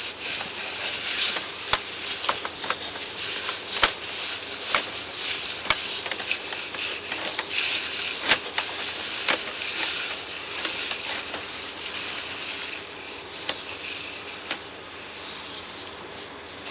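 Steady hiss with irregular sharp clicks and knocks as a CCTV drain camera on its push rod is fed along a 150 mm stormwater pipe.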